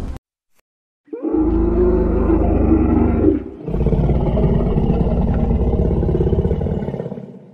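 Dinosaur roar sound effect for a T. rex: two long, rough roars, the first starting about a second in and the second following straight after it, then fading out near the end.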